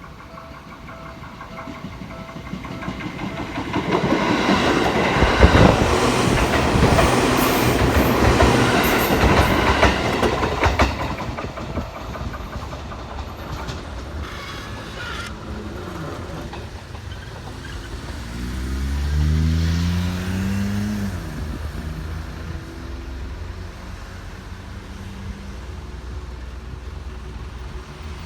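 Electric commuter train passing over a level crossing, its wheels clattering over the rail joints, loudest from about four to eleven seconds in and then fading away. Later, a road vehicle's engine rises in pitch and falls away.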